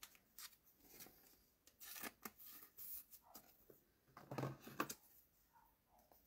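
Faint rustling and light clicks of a trading card and a soft plastic sleeve being handled, with a slightly louder cluster of rustles about four seconds in.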